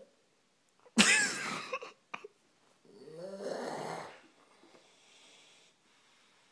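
A sleeping man snoring: a sudden loud snore about a second in, then a longer one around three seconds in that trails off.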